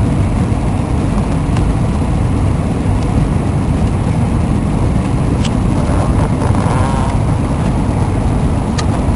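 Airliner cabin noise during the descent to landing: a steady low roar of the jet engines and rushing air. A few faint clicks are heard over it.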